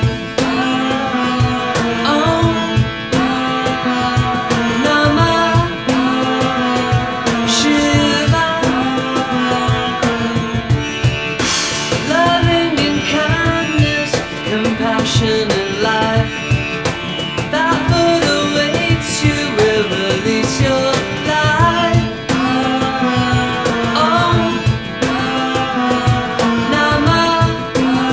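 Acoustic psychedelic rock band playing an instrumental passage: a sitar melody with bending notes over a repeating low riff and steady percussion.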